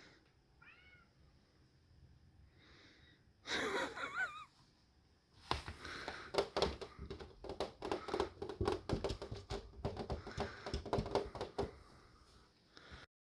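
A house cat meowing, a faint short meow about a second in and a louder one around four seconds, followed by several seconds of quick, irregular clicking sounds.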